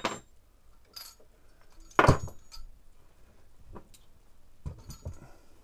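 Metal engine parts knocking and clinking as the cylinder block of a GX200-clone engine is lifted off its split crankcase and handled on a workbench. One sharp knock about two seconds in is the loudest, with a few lighter clinks later.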